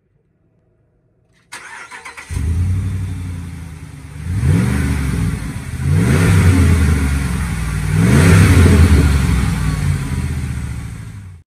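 A 2020 Ram 1500 Rebel's 5.7 L Hemi V8 is cranked about a second and a half in and catches, running at a fast idle. It is then revved up three times.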